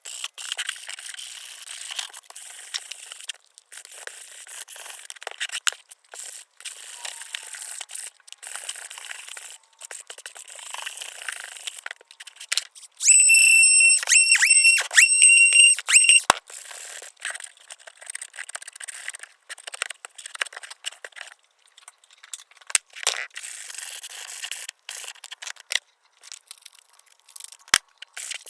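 Hand sanding of a wooden edge with 120-grit sandpaper: scratchy rasping strokes chopped into short pieces by abrupt cuts. About halfway through, a loud high-pitched tone sounds about four times over three seconds.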